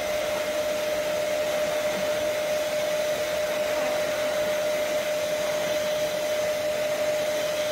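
Handheld hair dryer running steadily, a constant rush of air with one steady tone in it.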